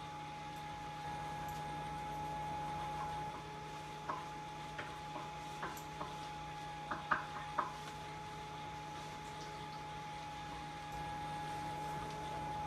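The small blower fan of an inflatable T-rex costume runs steadily with a constant hum. From about four to eight seconds in there is a scattering of light clicks and knocks on the kitchen counter, the loudest near seven seconds.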